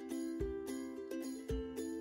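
Instrumental background music: a light repeating melody over a low beat about once a second.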